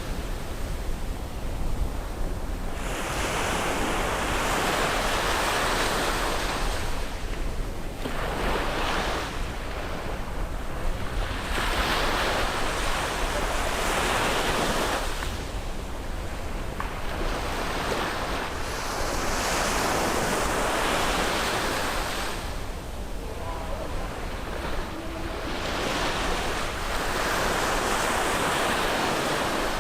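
Sea waves breaking and washing up on a beach, one surge after another every three to four seconds.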